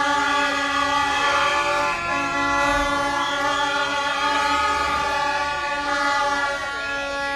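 Several horns blown at once in a continuous, loud blare, their steady pitches overlapping.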